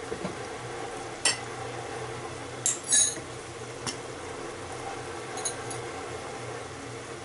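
Kitchen utensils clinking while cooking: a metal spoon and glass bottles knocking against pans and dishes in a few sharp, ringing clinks, the loudest cluster about three seconds in. Underneath runs a steady low hum with a faint sizzle of meat frying in the pan.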